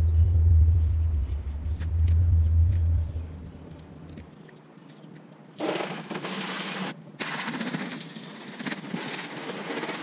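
A low rumble for the first four seconds, then a garden hose spray nozzle hissing as it sprays water onto a car, starting suddenly about five and a half seconds in, cutting out briefly about a second later and then continuing.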